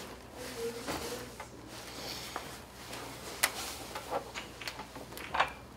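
Light rustling and scattered sharp clicks of rummaging through a backpack, with two louder clicks about three and a half and five and a half seconds in.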